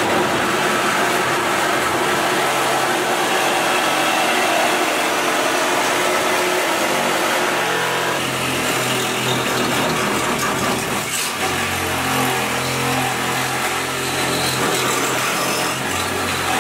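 Compact cordless reciprocating saw running and cutting through the sheet-metal edge of a car trunk hatch. It runs loud and continuous, and its tone changes about halfway through.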